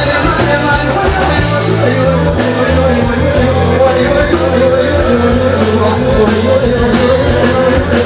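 Loud live band music through a concert PA, with a steady bass line and a voice singing over it.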